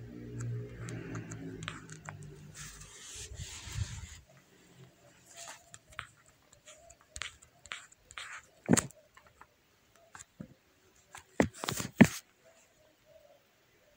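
A low hum and a brief rustle in the first few seconds, then scattered light clicks and three sharp knocks, the loudest about three-quarters of the way in.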